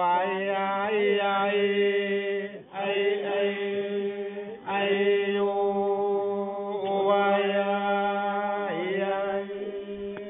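Chanted vocal music over a steady low drone, sung as a string of phrases about two seconds long, each starting with a rising slide in pitch.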